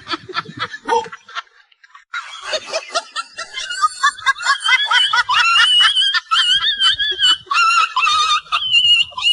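Laughter: short snickering bursts, then from about two seconds in a long, high-pitched, wavering laugh.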